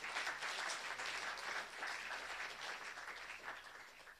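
An audience applauding, a dense, even clapping that dies away toward the end.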